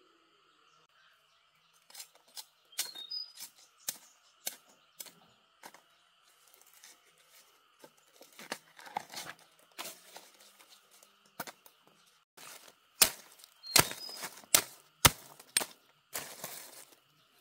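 Irregular sharp snaps and tearing sounds, a few to the second and loudest in the second half. Under them a steady high drone runs until it stops about twelve seconds in.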